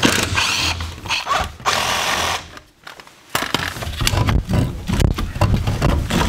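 Cordless drill running in bursts on a plumbing fitting, then stopping after a couple of seconds. Then a run of knocks and scraping as the fitting is worked loose by hand.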